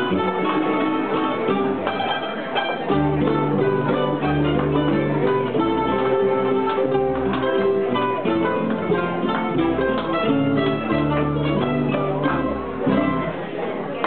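A plucked-string ensemble of five mandolins, a guitar and a string bass playing a tune: bright, quickly picked mandolin notes over a line of bass notes. The piece ends near the end.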